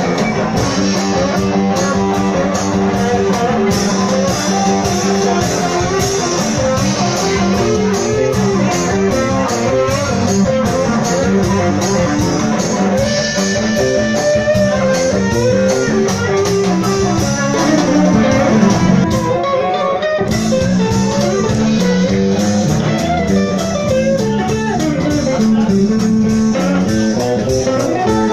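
Live band playing, led by electric guitar with a second guitar alongside, over a steady beat.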